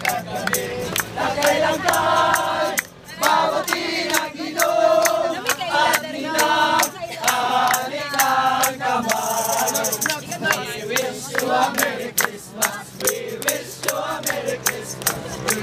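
A group of people singing together to a strummed acoustic guitar, with a steady rattling, clicking percussion beat throughout.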